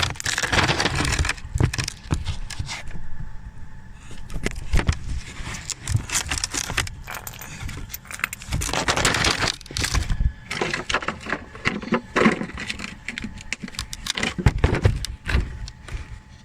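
Irregular metallic clinks, rattles and knocks: hand tools and brake parts being handled during a brake pad change.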